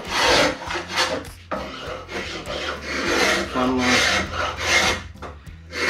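Spokeshave shaving a Huon pine tiller blank, a run of about seven strokes a little over one a second, while the tiller's curve is being shaped.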